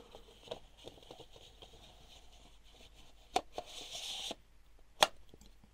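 Handling noise of a large telephoto lens being turned in the hands: soft rubs and light taps, a brief rustle, and two sharp clicks, the louder one near the end.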